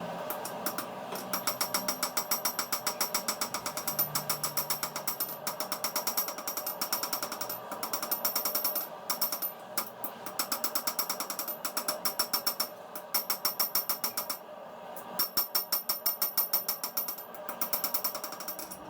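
Power hammer striking steel in fast, even runs of blows, several a second, with a metallic ring, broken by a few short pauses: a knife blade being drawn out under the hammer.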